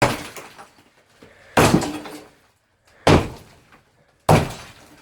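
Sledgehammer striking concrete four times, about one blow every second and a half, each hit a sharp crack with a short breaking, crumbling tail.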